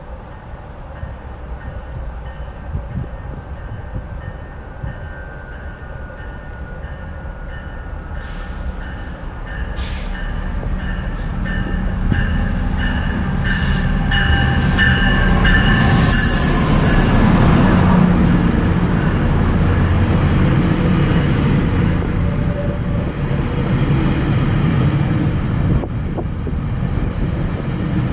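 A GO Transit diesel-hauled commuter train pulls into the station. The locomotive's engine and wheels grow steadily louder as it approaches, with a thin high squeal as it draws near, and are loudest as it passes about two-thirds of the way through. After that the bilevel coaches roll past with a steady rumble on the rails.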